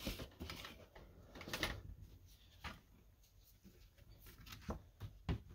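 Faint handling noises of a vinyl LP in its sleeve being slid out of the bottom of a large cardboard record package: a few soft, scattered taps and rustles, with a nearly silent stretch in the middle.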